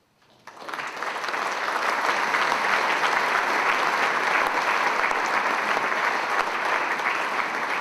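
Audience applauding. The clapping starts about half a second in, quickly builds, and then holds steady and dense.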